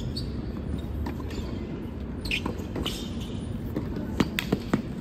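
A steady low room murmur, with several sharp knocks in quick succession a little after four seconds in.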